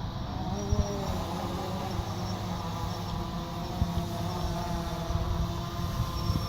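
Quadcopter drone's propellers whining in flight, several tones drifting slowly up and down in pitch, with wind buffeting the microphone.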